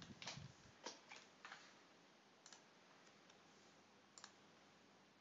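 A few faint computer mouse clicks over near-silent room tone: several in the first second and a half, then single clicks about two and a half and four seconds in.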